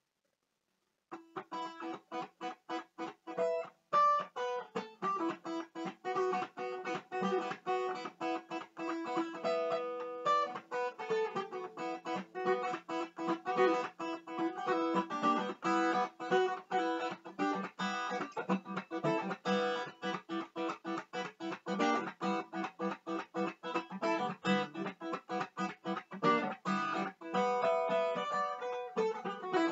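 Acoustic guitar played solo in a fast blues improvisation. A rapid run of plucked single notes moves up and down the neck, starting about a second in.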